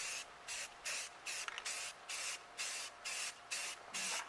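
Aerosol spray paint can hissing in short, evenly spaced bursts, about two a second, as a spoiler is painted.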